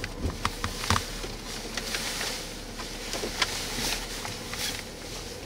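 Gusting outflow wind and scattered raindrops tapping on a stopped car, heard from inside the cabin. The wind swells about two seconds in and again about four seconds in.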